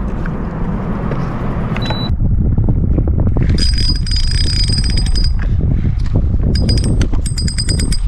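Spinning reel being cranked, a fast metallic ticking whir with a high bell-like ring, in two spells: one from about three and a half seconds in and a shorter one near the end. Before that, about the first two seconds hold steady wind and water rush on the boat, which cuts off suddenly.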